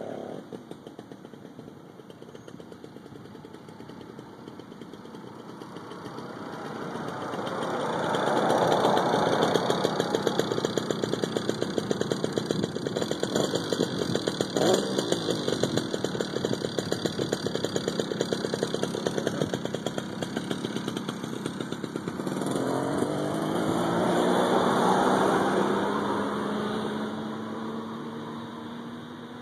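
Small 66cc two-stroke engine of a motorized bicycle (Grubee Skyhawk GT5 kit with an expansion-chamber exhaust) running under load on a high-speed pass. It grows louder over the first several seconds, stays loud with a rapid popping beat, swells once more with a falling pitch and then fades away.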